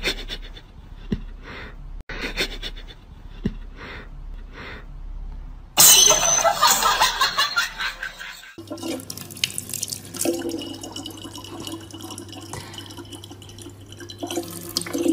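A loud, harsh noisy outburst lasting about three seconds, starting about six seconds in; then a faucet running a thin stream of water into a plastic water bottle, with a steady low hum behind it.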